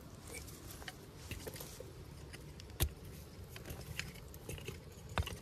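Scattered small clicks and taps over low, even background noise, with a sharper click about three seconds in and another near the end.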